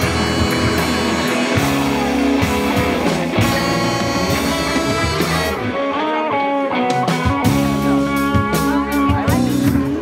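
Live rock band playing loudly: electric guitars, bass and drum kit, with a lead line of bending, gliding notes in the second half.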